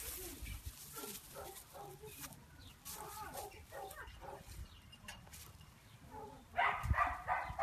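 A run of short, quiet animal calls, then a dog's louder yipping barks near the end.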